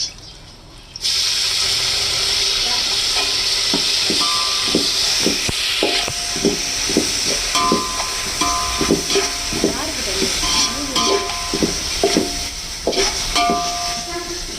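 Mint leaves hit hot oil and fried onions, and a loud sizzle starts suddenly about a second in and keeps going. Over it, a spoon stirs, knocking and scraping against the pan.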